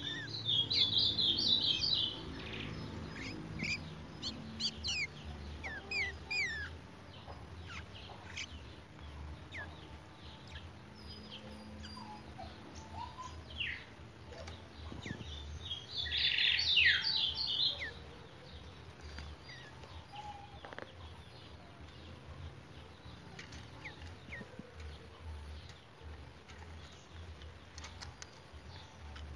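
Caged young chalchalero (creamy-bellied thrush) singing: two loud bursts of rapid chattering song, one at the start and one about sixteen seconds in, with scattered thin chirps and short whistles between.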